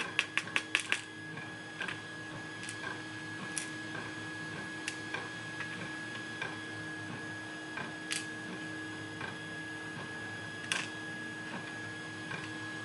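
Small metal clicks and taps of a lock being taken apart by hand, its pins and springs coming out of the core. A quick run of clicks in the first second, then scattered single clicks, over a steady faint hum.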